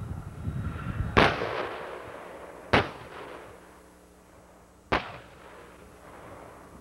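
Tank gunfire on a range: three sharp, loud reports, about a second and a half and then two seconds apart, each trailing off in a long echo. A low rumble runs beneath the first second.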